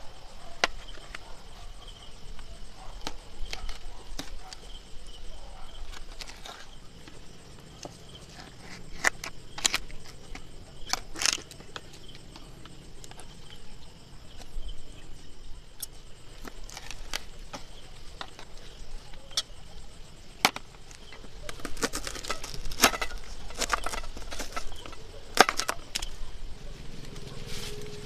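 Scattered sharp clicks and knocks of objects being handled, coming thicker and quicker in the last third, over a faint steady high-pitched tone.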